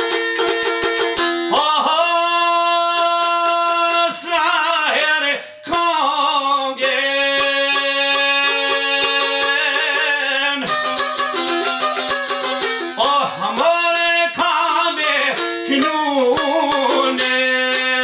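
A man sings an Albanian folk song in long, ornamented held notes, accompanied by a çifteli (two-stringed Albanian long-necked lute) plucked in fast repeated strokes over a steady drone. The çifteli plays alone at first, and the voice comes in about a second and a half in.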